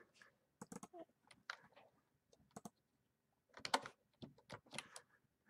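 Faint computer keyboard typing and mouse clicks: scattered single clicks with short runs of keystrokes.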